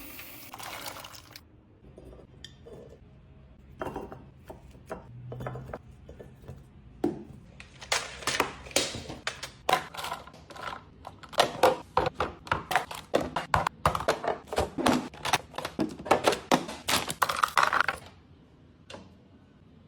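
Hard plastic refrigerator storage boxes and their contents being handled, with many short clicks, clacks and knocks. A few knocks come at first, then a dense run of them from about 7 seconds in until near the end, then it goes quiet.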